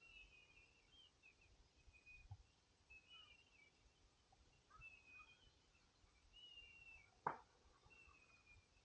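Faint, distant bird chirps, short calls repeating every second or so, with a single sharp click about seven seconds in.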